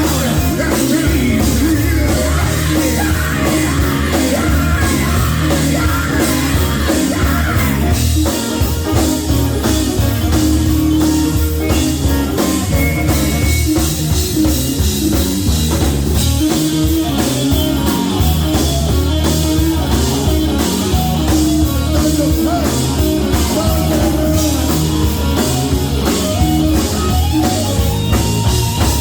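Live gospel group performance: a band with drum kit, bass and guitar playing loudly, with singing.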